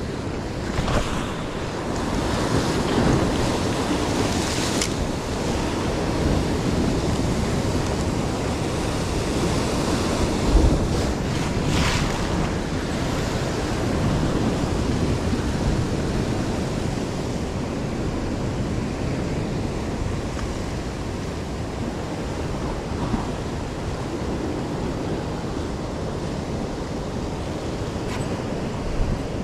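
Heavy ocean swell surging and breaking against a sandstone rock ledge, washing in again and again, with the louder crashes about ten to twelve seconds in.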